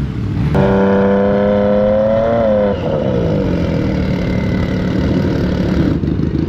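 Snowmobile engine revved and held high for about two seconds, its pitch climbing slightly before it drops back to a lower, rougher running note.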